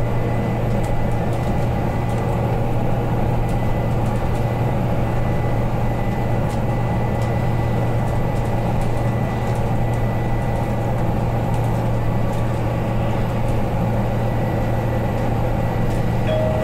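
Cabin noise of a BYD K9UB battery-electric bus driving at a steady speed: even road and tyre rumble with a strong low hum, and a faint steady high tone above it.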